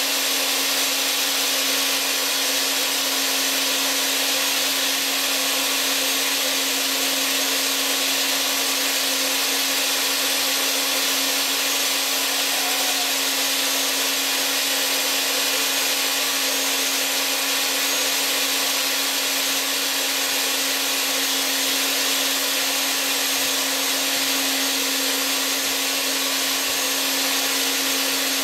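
Electric countertop blender running steadily, milling wheat grain into wholemeal flour. A constant motor hum sits under a loud even hiss, with no change in speed.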